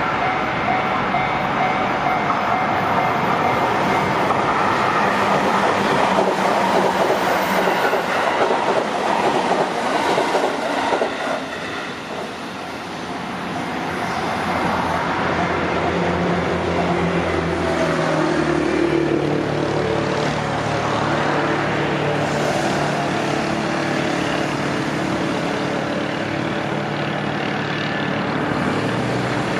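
Train passing on the JR Tokaido Main Line, loudest for the first eleven seconds or so. It dips about twelve seconds in, then settles into a steadier hum with several held low tones.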